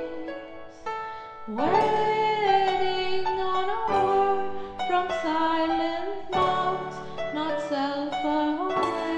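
Music: a lead melody of long held notes, several sliding up into pitch, over an instrumental backing track.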